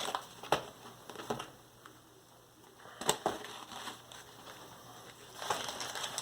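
Unboxing handling noise: a few sharp clicks and knocks, the loudest about three seconds in, then packaging rustling near the end as parts of a model plane kit are taken out of the box.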